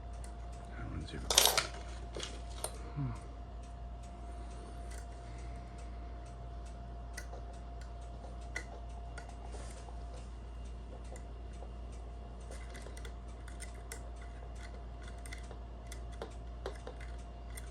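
Small metallic clicks and ticks of homemade lever picks and a tension tool working inside a five-lever lock, with one louder sharp clack about a second and a half in.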